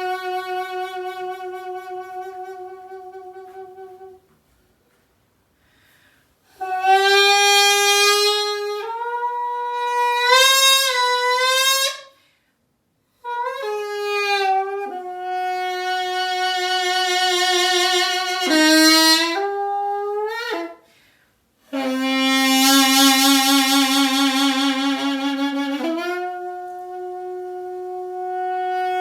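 Solo piri, the Korean double-reed bamboo pipe, improvising: long held notes with a wide vibrato, short phrases that step and bend upward, and brief silences between phrases. Near the end a loud, bright low note swells and then drops back into a steady held tone.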